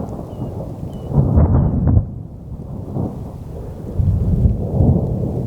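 Rolling thunder: a low rumble that swells loudest about a second in and again near the end.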